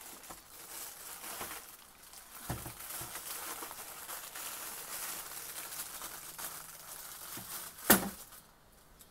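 Thin plastic packaging bags crinkling and rustling as they are handled around a hot air soldering station and its cabled handpiece, with a short knock about two and a half seconds in and a louder, sharp crackle near the end.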